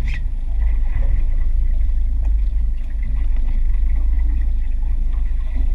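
Steady low rumble aboard a small aluminum fishing boat at sea: the boat's motor running and wind buffeting the microphone, with a few faint knocks.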